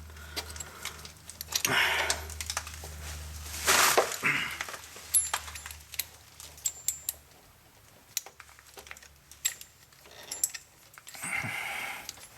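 Parking brake cable and tensioner bracket being worked by hand: scattered metal clicks and light rattles, with a few louder noisy bursts. The cable won't go in because it lacks slack.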